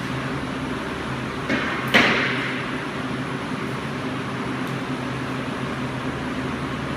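A steady machine hum, with two sharp knocks about half a second apart around two seconds in, the second louder and ringing briefly.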